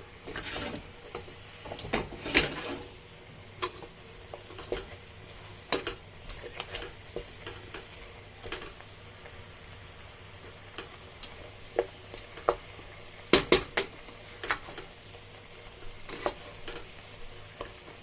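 A utensil clinking and knocking against a cooking pot as chicken is stirred, in scattered strikes with louder clusters about two seconds in and again about thirteen seconds in, over a faint steady background.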